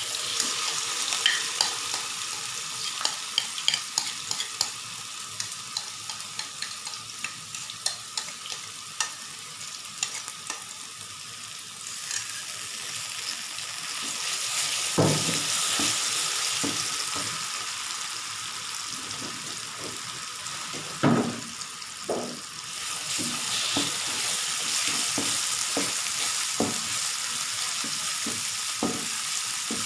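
Blended curry paste frying in oil with sautéed onions in a pan, sizzling steadily while a spatula stirs it, scraping and tapping against the pan, with a couple of louder knocks about halfway and two-thirds of the way through.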